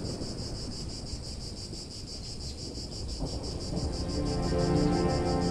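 Insects chirping in a steady, rapidly pulsing high trill over a low outdoor rumble; about three seconds in, soft sustained film-score music fades in and swells.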